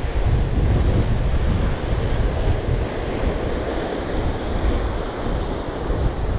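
Sea surf churning and breaking against rocks, with wind buffeting the microphone in an uneven low rumble.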